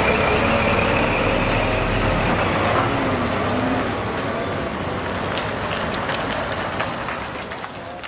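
Scania G 420 tractor unit's 12-litre inline six-cylinder diesel running as the truck and trailer roll slowly past, growing fainter over the last couple of seconds.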